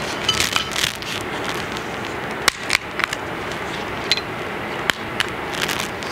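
Scattered short, sharp clicks and snaps as a priest handles the host and paten at the altar, over a steady background hiss.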